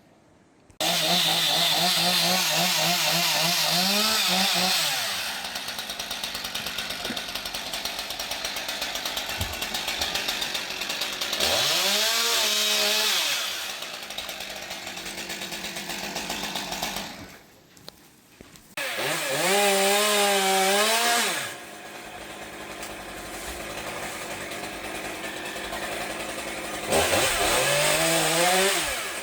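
Chainsaw engine running, revving up to full throttle and falling back several times. It drops to near quiet for about a second roughly two-thirds of the way through.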